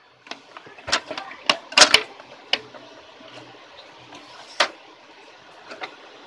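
Sharp plastic-and-metal clicks and knocks as the carriage unit of an HP DeskJet GT 5810 inkjet printer is handled and worked loose from its rail by hand. A quick cluster comes in the first two seconds, the loudest just before two seconds in, then single knocks about four and a half and six seconds in.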